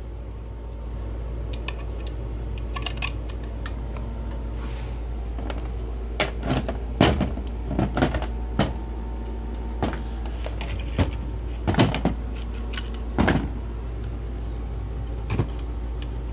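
Handling noise: a scattering of short clicks and knocks as objects are picked up and moved about, most of them in the second half, over a steady low hum.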